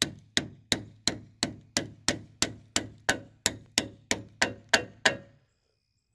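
A hammer tapping wood shims into the sealed seam between a boat hull and its crossbeam, to wedge them apart: a steady run of sharp, even blows, about three a second, that stops about five seconds in.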